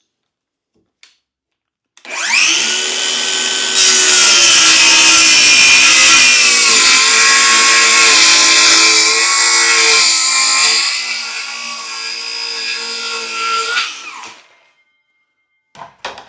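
Electric power saw cutting wood for about twelve seconds. It starts about two seconds in and gets louder near four seconds. The motor's pitch dips under the load. The saw eases off after about eleven seconds and stops near fourteen.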